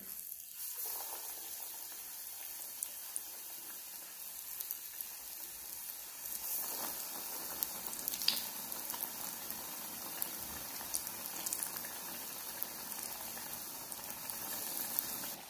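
Besan-batter-coated potato vadas deep-frying in hot oil: a steady sizzle with scattered small pops.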